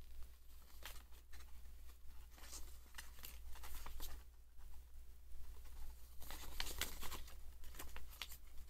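Paper leaflet rustling and crackling as it is handled and unfolded, in irregular bursts that are busiest about six to seven seconds in.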